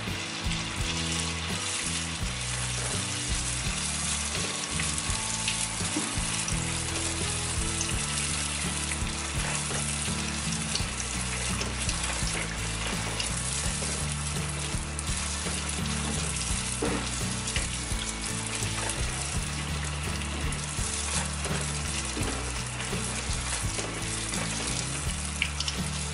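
Strips of you tiao dough deep-frying in hot oil, a steady bubbling sizzle as they puff up and are turned. Soft background music runs underneath.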